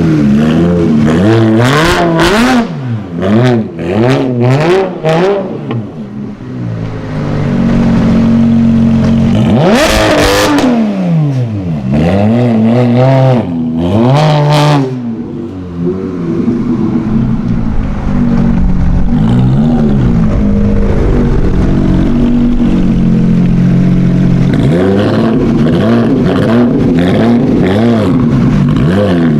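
A supercar engine revved hard several times in quick blips in the first half, then running at a steadier note that rises again near the end.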